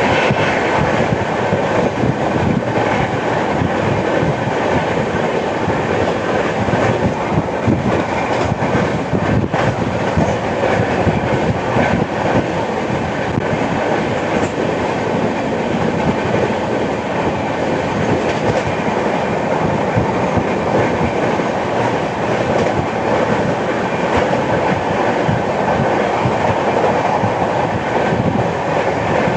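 Passenger express train (12810 Howrah–Mumbai CSMT Mail) running at speed, with steady loud wheel-and-rail noise and a continuous clickety-clack. The uploader bills the run for its flat-wheel sound, the beat of a wheel with a flat spot.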